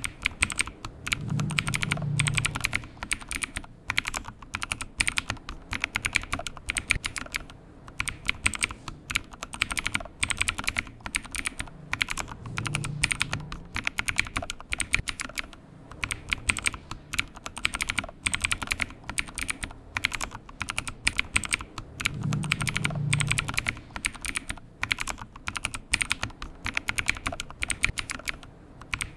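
Rapid, irregular typing on a computer keyboard, key clicks following one another closely, with a low hum that swells briefly three times.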